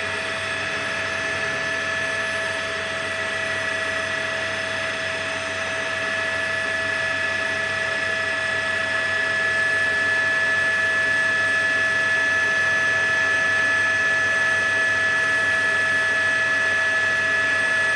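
Steady mechanical whine of a helicopter's turbine engine: several fixed high tones over an even rushing noise, growing slightly louder about halfway through.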